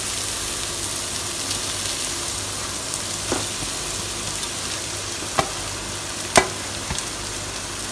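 Onions, ginger and garlic sizzling steadily in oil in a nonstick pan, with a few sharp knocks as flaked fish is scraped off a steel plate into the pan, the loudest about six seconds in.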